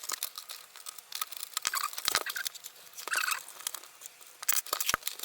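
Blu-ray player's plastic casing being handled and worked at its clips: scratchy scraping with many small clicks, and sharper knocks about two seconds in and again near the end.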